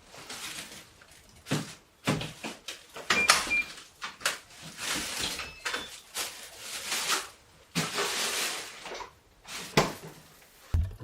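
Household handling noises: an irregular run of clicks, knocks and rustling, with a low thump near the end.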